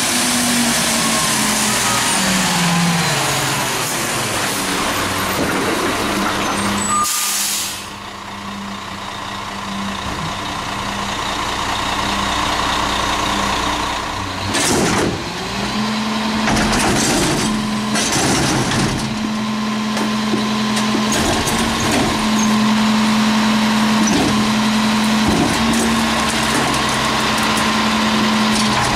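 CCC McNeilus rear-loader garbage truck slowing to a stop, its engine note falling, then a loud hiss of air brakes about seven seconds in. Later come several shorter air hisses, and the engine settles into a steady run with a faint whine while the rear lifter raises a dumpster.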